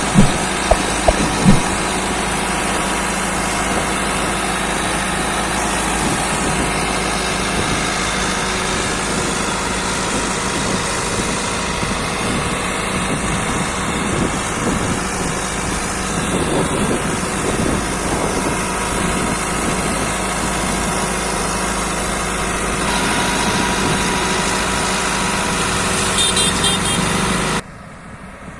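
Heavy construction machine's engine running steadily, with a few sharp knocks in the first second and a half. The sound drops off suddenly about a second before the end.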